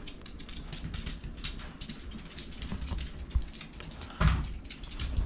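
A small dog's claws clicking and tapping on a wooden floor as it walks about, with a single louder thump about four seconds in.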